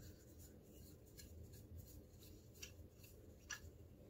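Faint, scattered clicks and light rubbing of small wooden parts being handled as the top screw of a wooden niddy noddy is unscrewed and its cross arm pulled off.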